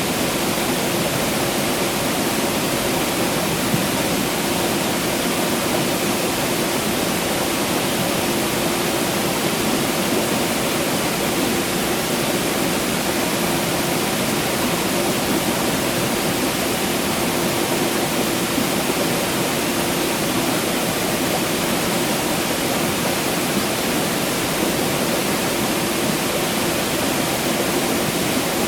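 Water rushing steadily: a dense, even hiss of flowing water with no breaks or changes.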